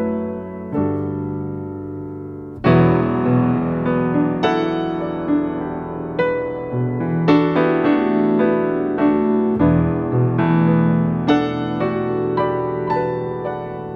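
Solo piano music: single notes and chords struck one after another, each dying away.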